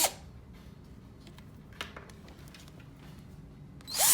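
Short bursts of a cordless drill, its motor spinning up and down: one burst cuts off at the very start and another starts just before the end. In between are low handling noises with a few light clicks.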